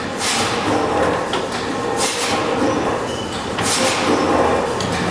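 Wrought-iron ring twisting machine running, its motor-driven mandrel coiling an iron bar into rings. Steady mechanical running with a scraping rush of iron on steel recurring about every second and three-quarters.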